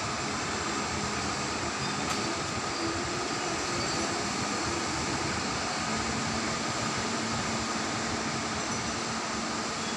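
Steady, even roar of sea surf with no distinct wave breaks. A faint low hum joins about six seconds in.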